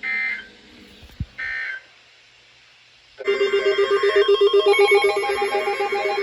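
The last two of three short data bursts of an Emergency Alert System end-of-message code, about a second and a half apart. About three seconds in, a louder electronic ringtone starts: a fast-pulsing low tone under a busy, many-toned melody.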